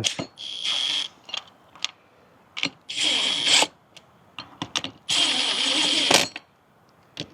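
Power drill fitted with a 13 mm socket bit, spinning nylon lock nuts onto bracket bolts in three short bursts of a steady whine, each about a second long.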